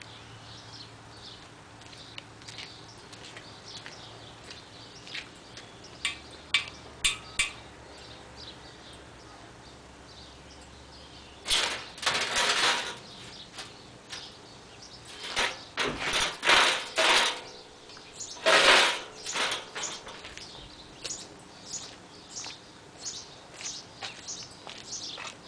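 Short bursts of arc-welding crackle as a cracked exhaust manifold is welded, with a few sharp taps and clicks between the bursts. The loudest bursts come about halfway through and a little after.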